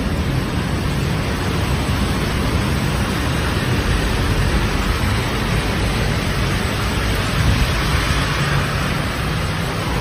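Storm wind and heavy rain: a loud, steady rushing with a churning low rumble underneath.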